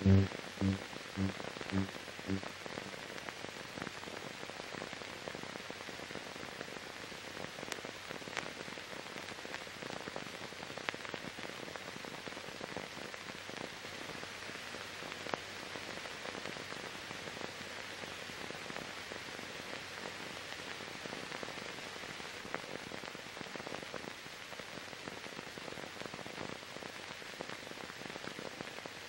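Steady hiss with scattered clicks and crackles, the noise of a blank soundtrack on silent archival film. In the first two seconds a low buzzing tone pulses a few times and fades away.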